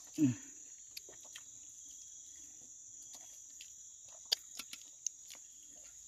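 Night insects (crickets) chirping in a steady high drone, with a few light clicks of a wooden spoon against a steel bowl about four to five seconds in. A brief 'mm' from a voice right at the start.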